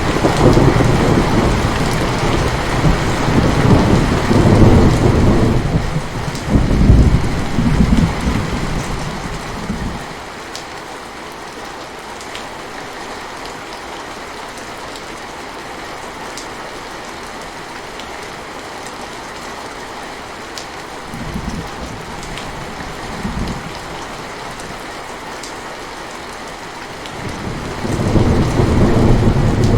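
Steady rain falling, with rolls of thunder: a long rumble over the first ten seconds, two short ones a little past the middle, and another building near the end.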